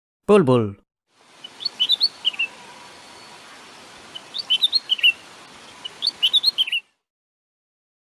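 Bulbul singing: three short bursts of quick, chirpy whistled notes a couple of seconds apart, over a steady hiss.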